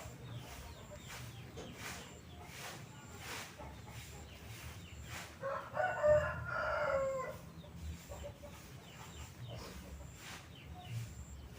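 A rooster crowing once near the middle, a single call of about two seconds.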